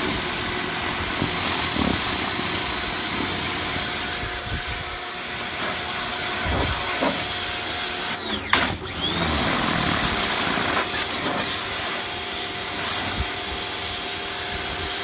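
HGTV Home 1750 PSI pressure washer running with its rotating turbo nozzle: a steady motor whine under the hiss of the water jet. Just past halfway the whine drops out for a moment and comes straight back up, as the spray is stopped and started again.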